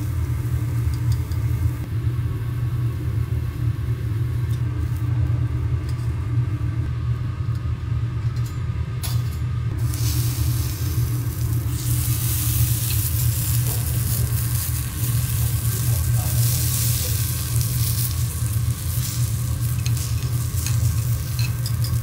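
Vegetables frying on a hot teppanyaki iron griddle over a steady low rumble. The sizzle swells much louder about halfway through and stays loud.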